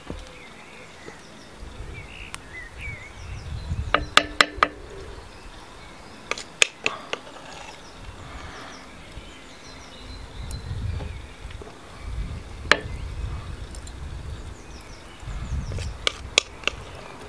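A metal spoon clinks and taps against a frying pan in short clusters as banana fritter batter is spooned into hot oil. Low rumbling comes in between the clusters.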